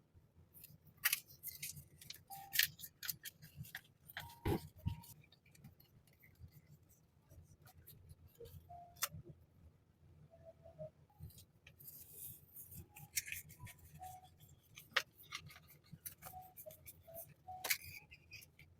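Hands unpacking and handling haul items and their packaging: irregular taps, clicks and short rustles, with a few sharper knocks at about 4.5 and 15 seconds in.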